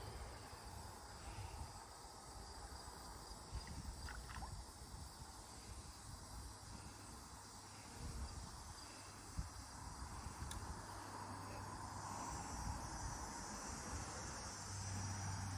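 Faint outdoor ambience: a steady high insect chorus with a low wind rumble and a couple of small clicks.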